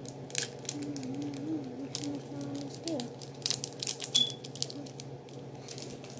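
Slime being squeezed and kneaded by hand, giving many short, irregular crackling clicks and pops.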